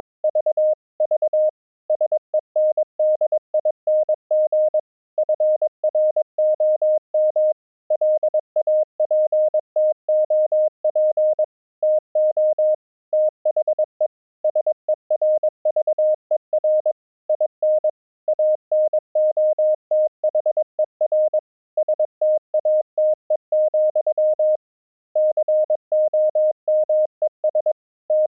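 Morse code (CW) sent as a single steady tone, keyed on and off in quick dots and dashes, with short pauses between letters and words.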